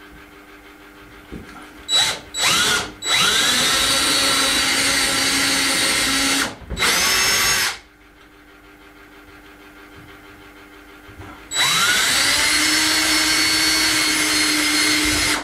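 Cordless drill boring holes through a wooden cupboard door: two quick blips on the trigger, then runs of several seconds with a pause in between, each run starting with a rising whine as the motor spins up to speed.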